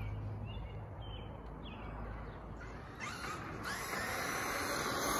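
Outdoor street ambience with a few short bird chirps, then from about three seconds in a rushing noise rising steadily in level: the electric Traxxas E-Revo 2.0 RC monster truck driving on pavement and coming closer.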